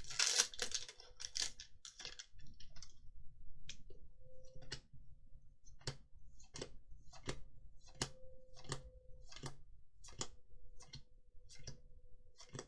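A Magic: The Gathering booster pack's wrapper crinkling for the first couple of seconds, then a steady series of light clicks, about one every 0.7 seconds, as the trading cards are flicked through one by one.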